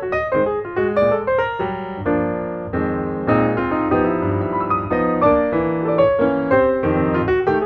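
Background piano music, a flowing melody over chords.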